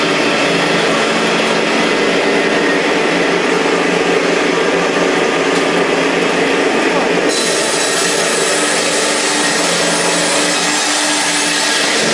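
Circular saw of a round-log sliding-table sawmill running and cutting timber as the log carriage moves past the blade: a loud, continuous sawing noise over the steady tone of the saw's motor.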